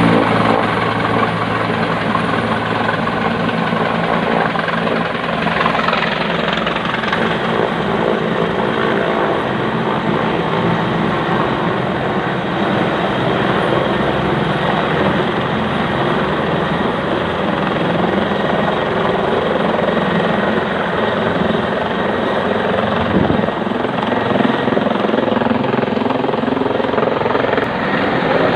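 Helicopter running at close range: steady engine and rotor noise mixed with the rushing wind of the rotor downwash.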